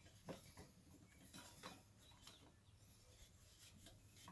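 Near silence with a few faint, scattered scrapes and rubs of a rubber tire and tube being worked by hand.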